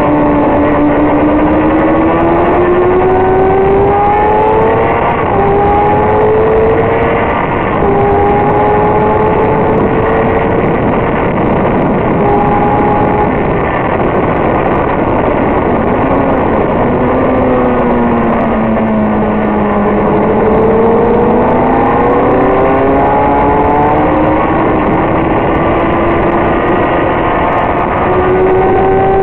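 Sport motorcycle engine heard from onboard at speed, its pitch climbing through the gears with a small drop at each upshift, sinking in the middle as the bike slows, then climbing again as it pulls away. A steady rush of wind runs underneath.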